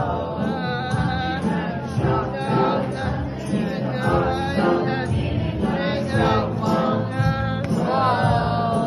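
Singing voices, a choir, performing a song over instrumental backing.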